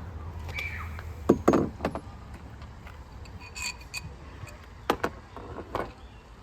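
Light clicks and knocks of small hardware being handled: the mast adapter's sleeves, wing bolt, eye nut and cleat being picked up and set down. Several sharp clicks come in small clusters over a low steady hum.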